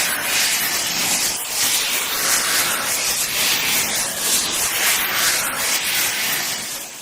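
Swoosh sound effect for horror: a continuous airy rush of hissing noise that surges and fades in quick, uneven swells, with no tone or pitch.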